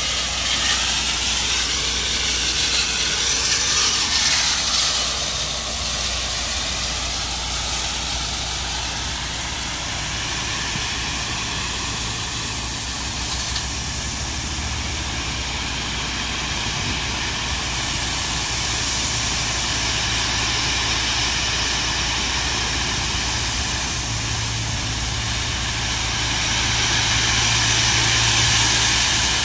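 Dump truck's diesel engine running while its tipped bed unloads landscape rock, with a steady rushing hiss of rock sliding out, rising slightly near the end.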